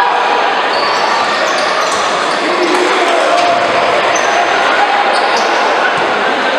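Futsal game noise in an echoing sports hall: a steady hubbub of crowd voices, with short high squeaks of players' shoes on the court and the knock of the ball scattered through it.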